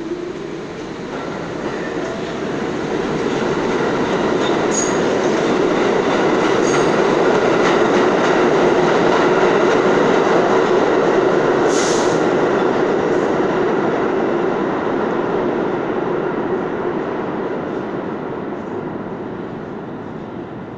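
New York City subway train running through an underground station on the far track. Its rumble and rail noise swell as it approaches, are loudest about halfway through as it passes, then fade as it leaves. A few short, sharp clicks are heard around the middle.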